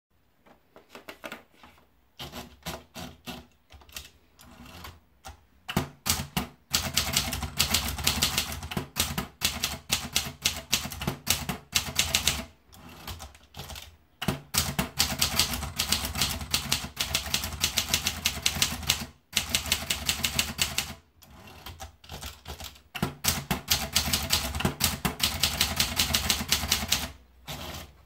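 Triumph Tippa manual portable typewriter being typed on: lighter, sparser clicks for the first few seconds, then quick runs of sharp keystrokes with a few short pauses between lines.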